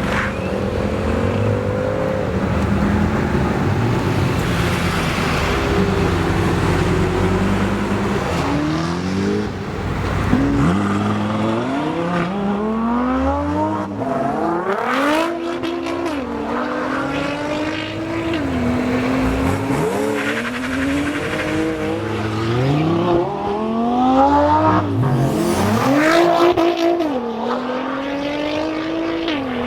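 High-performance sports car engine, running with a steady deep note at first, then from about ten seconds in repeatedly climbing in pitch and dropping back as it is driven hard.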